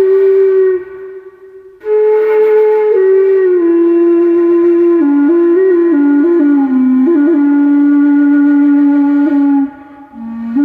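A flute playing a slow solo melody of long held notes that step gradually lower, with a short pause for breath about a second in and another near the end.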